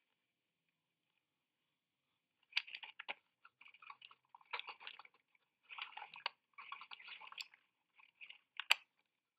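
Faint, irregular clicking and crackling rattles in clusters, with a sharper click near the end. This is the balloon payload's camera housing being knocked and jostled as the payload tumbles just after the balloon bursts.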